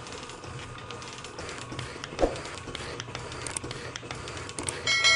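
Metal shaper cutting steel on roughing passes: steady machine running with repeated clicking from the ram stroke and ratcheting feed, and one sharp knock about two seconds in. Just before the end a ringing chime with several tones starts.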